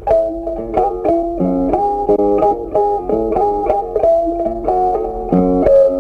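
Background music: a plucked guitar playing a melody over chords, with notes changing several times a second.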